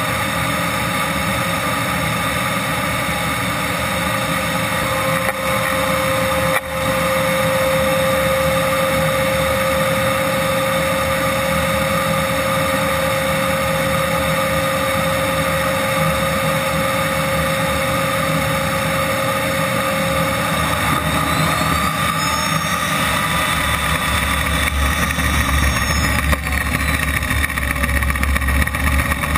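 RC jet turbine engine idling with a steady whine made of many tones. About two-thirds of the way in, its pitch glides up and down and a low rumble builds.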